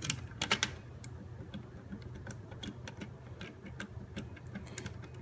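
Light, irregular clicks and taps of small hard plastic and metal parts being handled while a router is taken apart, with a few louder clicks about half a second in.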